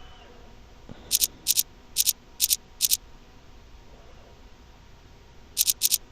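Falcon CNC video measuring machine running an automatic measurement program: a soft thump about a second in, then a series of short, high-pitched chirps, mostly in quick pairs, about five in the next two seconds and three more near the end.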